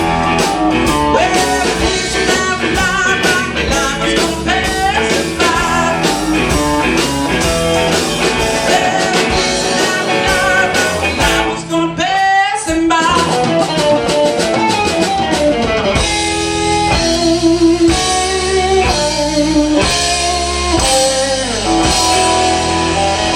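Live blues band playing an instrumental stretch: electric guitar over bass and a drum kit keeping a steady beat, with a brief dip in the sound about halfway through.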